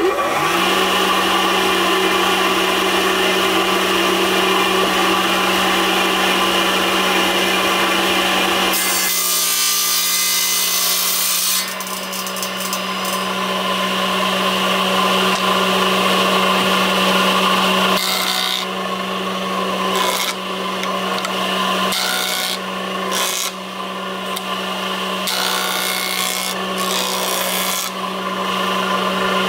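Handheld electric power tool spinning up with a short rising whine, then working wood: a steady motor hum under a harsh cutting noise that changes as the tool is pushed along and lifted from the timber.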